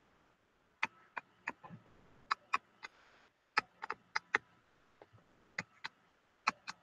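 Computer mouse button clicking about fourteen times at an irregular pace, often in quick press-and-release pairs, as lines are drawn on a digital whiteboard.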